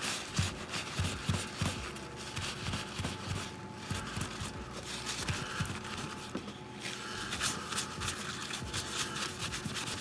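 Damp paper towel rubbed back and forth over a sheet of leatherette patches: a run of short, irregular scuffs and rubs.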